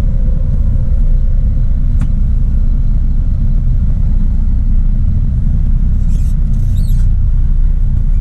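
Semi-truck's engine and cab rumbling steadily, heard from inside the cab as the truck moves slowly. A single sharp click about two seconds in, and a short high-pitched hiss around six to seven seconds in.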